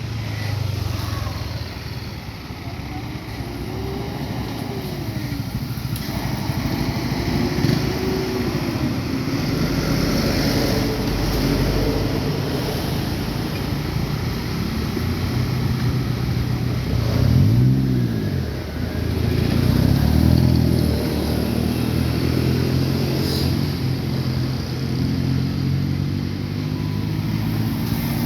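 Motor vehicles driving past on a road, each engine note rising and then falling as it passes, with the loudest pass-by about seventeen seconds in.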